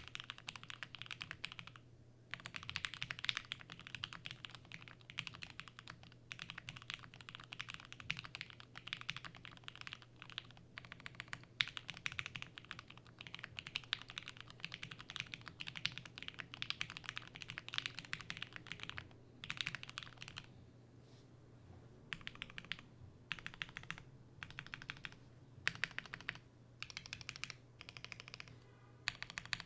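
Fast typing on a 7V custom mechanical keyboard with Matrix Labs FFFF switches lubed with 205g0, a polycarbonate plate and GMK keycaps: long runs of keystrokes broken by short pauses, turning into shorter separate bursts in the last third.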